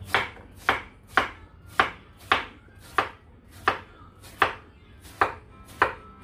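Kitchen knife chopping Korean zucchini (aehobak) into small pieces on a wooden cutting board. There are about ten sharp chops, one every half second or so, each ending as the blade hits the board.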